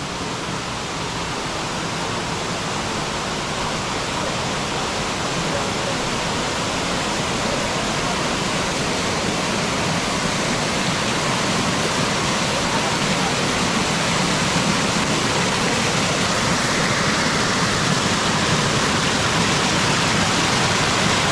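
Waterfall rushing steadily, growing gradually louder.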